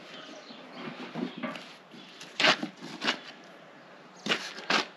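Rubber inner tube being pushed and rubbed into a large muck-spreader tyre: a handful of short scuffs and thuds of rubber on rubber.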